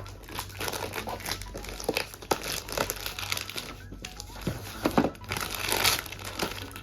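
Plastic packaging crinkling and rustling as toy pieces are unwrapped, in irregular bursts with small clicks, the loudest rustle near the end.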